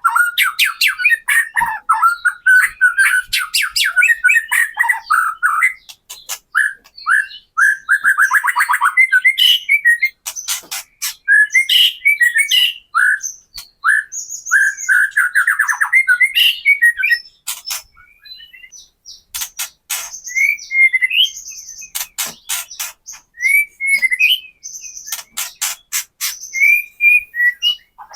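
White-rumped shama (murai batu) singing: fast whistled phrases and trills broken by runs of harsh, rapid rattling 'kretek' calls, the agitated rattle used as a lure to goad other shamas into singing. The first few seconds are a dense stream of song, and after that the notes and rattles come in shorter bursts with brief gaps.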